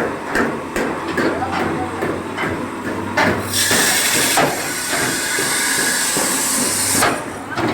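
Workshop noise in a truck body works: repeated hammer blows on metal, about two or three a second, then a loud steady hiss lasting about three and a half seconds, over a low hum.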